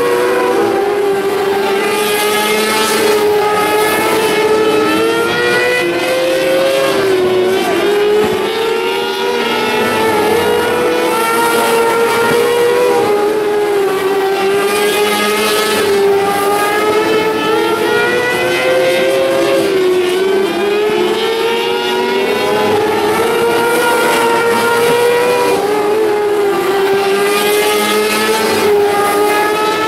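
A field of 600cc micro sprint cars racing, several high-revving motorcycle engines overlapping, their pitch rising and falling again and again as the cars go around the track.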